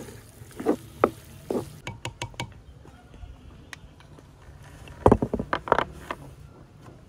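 A spatula knocking and scraping in a metal wok of cooked eggplant mash, a few separate knocks in the first second and a half, then after a pause a cluster of louder knocks and clatters about five seconds in.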